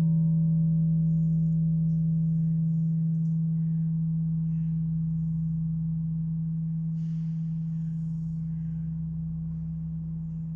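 A 24-ton blagovestnik (great tower bell) hums on after a strike from its automatic clapper drive. One deep steady tone slowly fades, and the higher overtones die away within the first few seconds.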